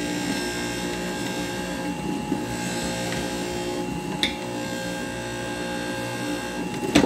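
Jack LaLanne's Power Juicer, a centrifugal electric juicer, running with a steady motor hum. A sharp click about four seconds in and another near the end.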